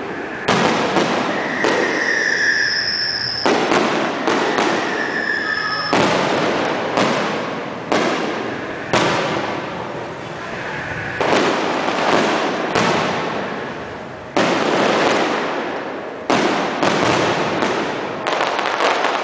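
Fireworks display: aerial shells bursting one after another, about a bang a second, each tailing off in a rumbling echo. Two high whistles sound in the first few seconds.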